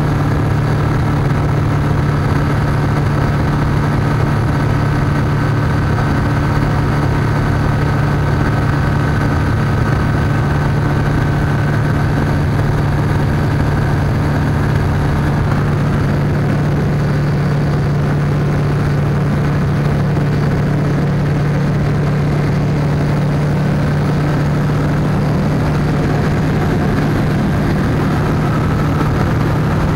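NG-6 ultralight airplane's engine and propeller droning steadily in level flight, heard inside the cockpit, a constant low hum under rushing noise.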